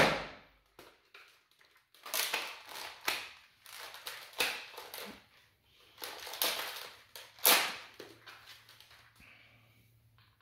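Nerf Rival Roundhouse, fitted with a stiffer replacement spring, fires once with a sharp snap right at the start. A few seconds later come a run of irregular plastic clacks and rattles as the hard-to-prime blaster is recocked.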